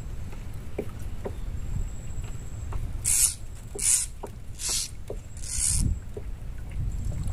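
Four short hissing swishes, evenly spaced a little under a second apart, as fishing line is hauled in by hand while a fish is fought on a bent bamboo pole. They sit over a steady low rumble.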